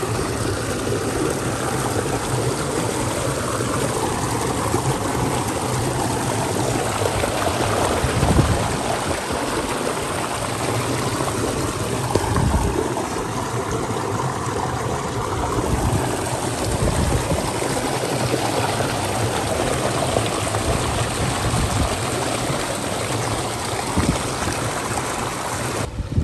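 Shallow creek water rushing and bubbling over rocks, heard close to the water as a loud, steady rush, with a few dull low thumps.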